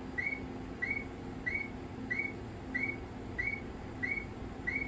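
Short electronic chirp repeating evenly about one and a half times a second, each a brief high tone that dips slightly, over a faint low hum: a warning beeper sounding in a railway signal room.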